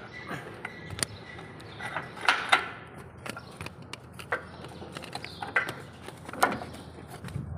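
Irregular metallic clinks and knocks of work on a truck chassis, with the loudest pair of knocks about two seconds in and another near the end.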